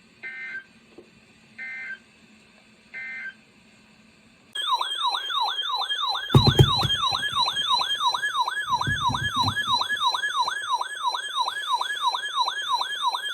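Three short bursts of Emergency Alert System SAME header data tones about one and a half seconds apart, then a loud siren-like electronic alert tone warbling up and down about three times a second. A thump sounds about six seconds in.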